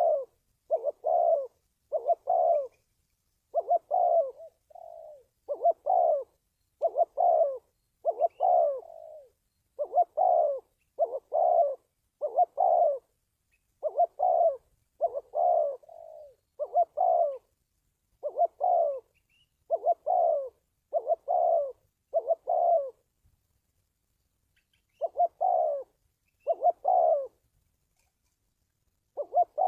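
Spotted dove cooing in a long run of short, repeated notes about once a second, with a few softer notes and two brief pauses near the end. It is a lure recording of the call used in dove trapping.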